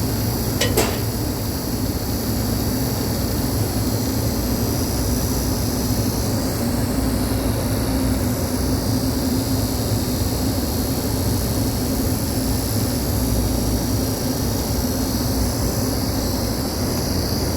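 Steady drone of rooftop air-conditioning equipment running: a constant low hum with a high hiss over it. One sharp knock a little under a second in.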